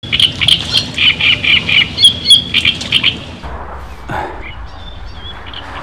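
Small birds chirping in quick repeated calls, loud for about the first three seconds. After that come fainter, scattered chirps over a steady low background noise.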